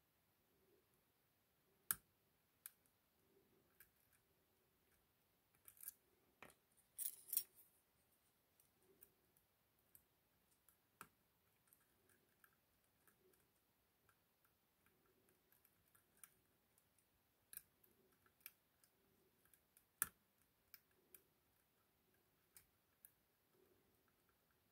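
Sparse, faint metallic clicks and ticks of a lock pick and tension tool working the pins of an ASSA 6000 lock cylinder during single-pin picking. There are a few sharper single clicks and a short flurry of clicks about a quarter of the way in.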